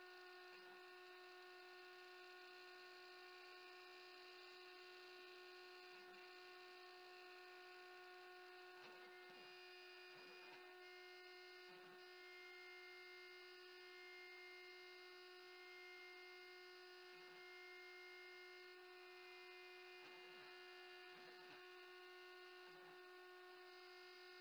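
Faint, steady whine of a CNC router spindle cutting 20 mm HDPE, heard very low as a stack of even tones.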